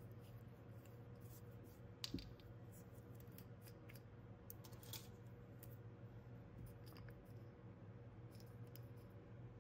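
Steady low hum of an air purifier running, with a few light taps and clicks of glass nail polish bottles and plastic swatch sticks being handled on the table; the loudest tap comes about two seconds in.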